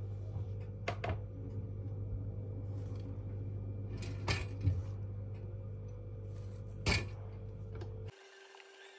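A table knife clinking and scraping on a ceramic plate while spreading on a bagel, with three sharp clinks, over a steady low hum. The hum stops suddenly near the end.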